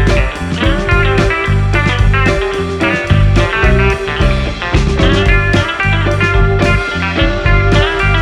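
Background music: a guitar-driven instrumental passage with heavy bass and a steady beat.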